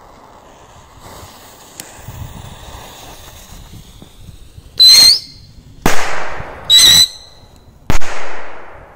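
Small stick-rocket fireworks going off, beginning with a faint hiss as the fuses burn. Two rockets each give a short shrill whistle followed a second later by a loud sharp bang that echoes away.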